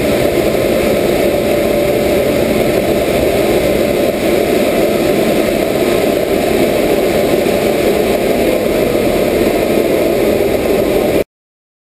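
Suzuki SV650's V-twin engine idling steadily on a rolling-road dyno; the sound cuts off suddenly near the end.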